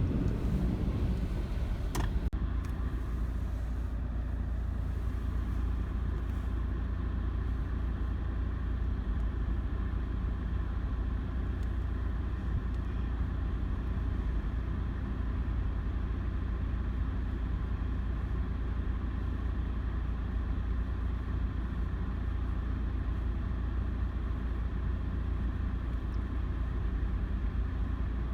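A car driving: a steady low rumble of engine and running gear, with a single click about two seconds in.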